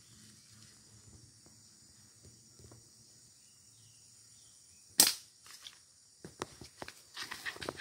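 A slingshot shot: one sharp snap as the rubber bands are released, about five seconds in. Smaller clicks and rustling follow toward the end.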